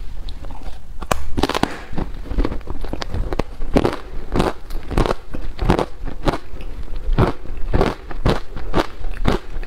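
Close-miked crunching of frozen matcha ice being bitten and chewed: a steady run of crisp crunches, about two to three a second.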